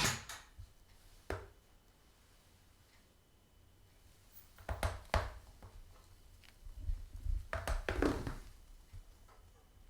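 Music from the Panasonic stereo cuts off right at the start, followed by quiet room tone with a few scattered clicks and short knocks from the system's controls being handled, in three small clusters.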